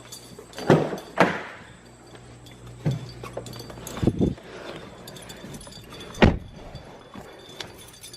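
Several sharp knocks and clunks, about five spread over the span, with keys jingling and a faint low steady hum underneath that stops about four seconds in.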